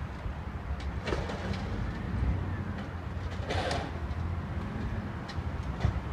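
Low steady rumble of a distant garbage truck working its way along a street, with a bird calling briefly about a second in and again around three and a half seconds.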